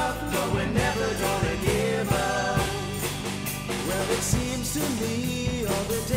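Music: a song with a steady drum beat, bass and a melody line.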